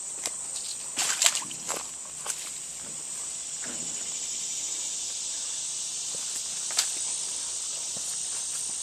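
Steady high-pitched insect chorus, with a few crunching footsteps about one to two and a half seconds in and a single sharp step or snap near seven seconds.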